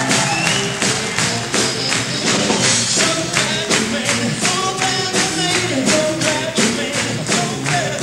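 Live mixed ensemble of trumpets and other horns jamming a blues over a steady, crisp percussion beat.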